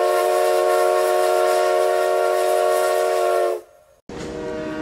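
Steam locomotive chime whistle blowing one long, steady chord that cuts off about three and a half seconds in. Shortly before the end, a different, quieter horn chord starts abruptly.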